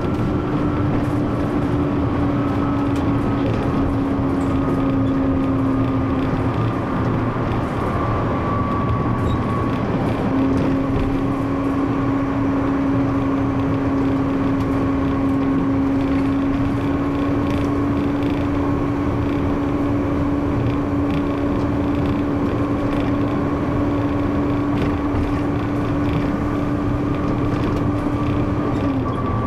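Bus engine and drivetrain running on the move, heard from the cab: a steady whine over road rumble. The whine drops in pitch about seven seconds in, comes back up a few seconds later, and dips again near the end.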